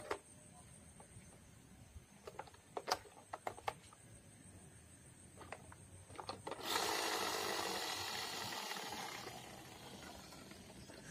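Plastic toy car handled over a cardboard box: scattered light clicks and knocks of plastic, then about two-thirds of the way in a sudden loud whir that slowly fades.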